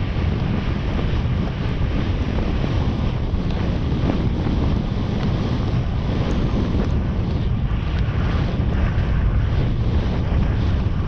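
Steady, loud wind rush and buffeting on a GoPro microphone carried on a galloping horse, mostly a low rumble.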